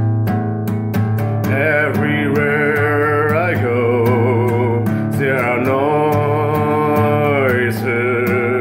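Music: strummed acoustic guitar chords, joined about a second and a half in by a held melody line with vibrato that carries on in two long phrases.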